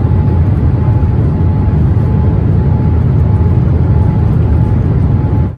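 JAL Boeing 787 with GE GEnx engines: a steady, loud low rumble of engine and airflow noise with a faint steady whine above it, cut off suddenly near the end.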